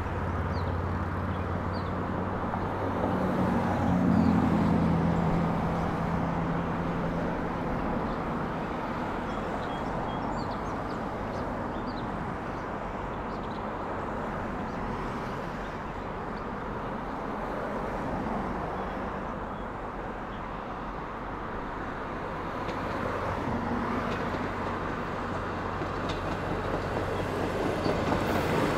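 VIA Rail passenger train of Renaissance cars approaching from a distance and running past below, a steady rumble that swells and fades slightly. Just at the end, the cars' wheels begin clicking over the rail joints.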